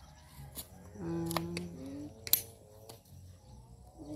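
Spade blade working into dry soil, giving a few sharp metallic clicks and scrapes, the loudest about two seconds in. A faint voice is heard for about a second, around one second in.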